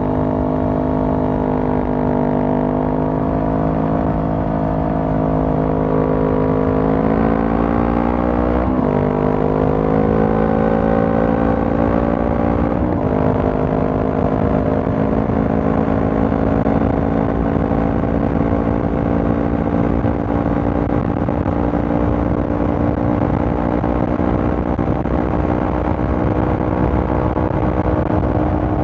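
Honda CB500F's 471 cc parallel-twin engine through a Mivv GP Pro aftermarket exhaust, pulling under acceleration with its pitch rising. The pitch drops sharply twice in the first half as the rider upshifts, then the engine holds a steady note while cruising.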